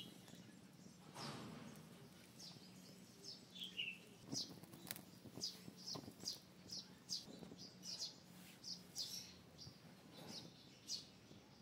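Faint bird chirps outdoors: short high calls, repeated about twice a second from about two seconds in.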